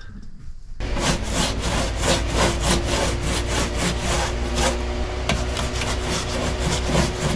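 Paint brush scrubbing thick black rubberized rust-reformer coating onto a car's steel trunk floor, starting about a second in with quick repeated back-and-forth strokes, about three a second, over a steady low hum.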